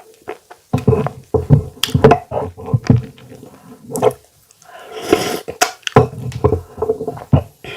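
Close-miked wet chewing and squelching of fufu, with lip smacks and clicks coming in irregular bursts.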